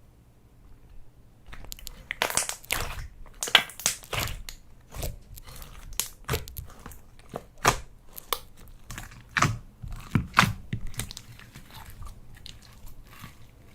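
Slime being squeezed and pressed by hand, giving irregular crunchy crackles and pops in clusters. It starts about a second and a half in.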